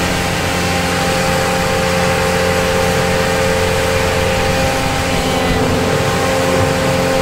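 Boatyard travel lift's engine running steadily as it hoists a cabin cruiser out of the water in its slings: a constant engine hum with a held mid-pitched tone over it.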